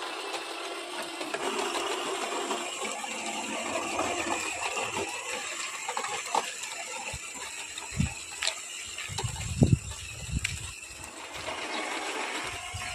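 Small electric motor and gearing of a homemade cardboard RC truck running steadily, with scattered clicks and a few low thumps in the second half.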